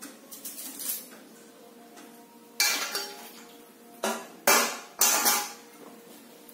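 Stainless steel pot and utensils clanking: a few light clinks at first, then five loud metallic clanks with a brief ring, starting about two and a half seconds in.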